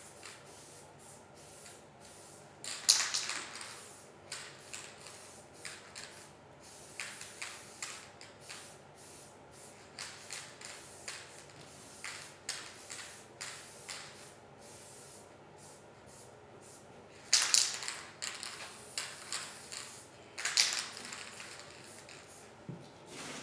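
Paint being applied to a canvas: many short, irregular hissing strokes, with a few longer, louder hisses about three seconds in and again around seventeen and twenty seconds.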